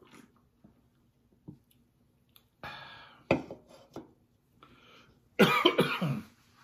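A man coughing and clearing his throat. There is a first cough about two and a half seconds in, then a louder, rougher cough near the end, with a couple of short knocks between them.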